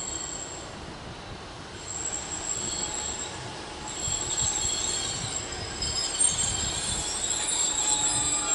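Class 150 Sprinter diesel multiple unit pulling into the platform and slowing to a stop, its wheels and brakes giving several high-pitched squealing tones over a low rumble. The squeal grows louder about halfway through.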